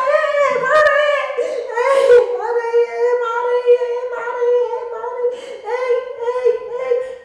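A woman's high voice singing an unaccompanied melody, mostly long held notes with short gliding steps between them.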